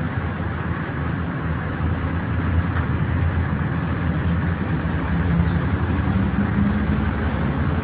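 Engine of a Mercedes-Benz O 405 city bus running steadily, with a low rumble whose pitch rises slightly about two-thirds of the way through.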